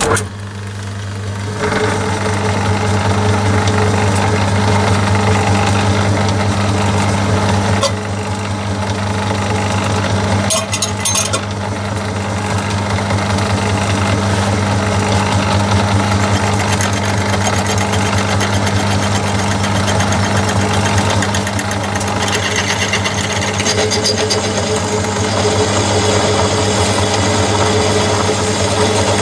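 Myford lathe starting up and running up to speed within about two seconds, its motor and drive giving a steady mechanical hum, while a 1/4-inch twist drill in the tailstock chuck bores into the end of a soft MT2 arbor, adding higher-pitched cutting noise in the later part.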